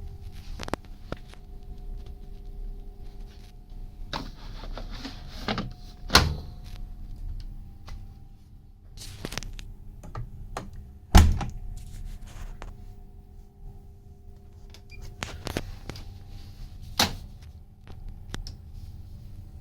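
Bosch washing machine running through a wash with socks and underwear: a steady motor hum with irregular thuds and clunks as the drum turns the laundry, the loudest about halfway through, and stretches of hiss in between.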